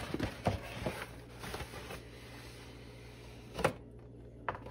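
Cardboard book mailer being opened and handled, rustling and scraping, with a string of light knocks and clicks over the first second and a half and a louder knock about three and a half seconds in as the hardcover book is slid out.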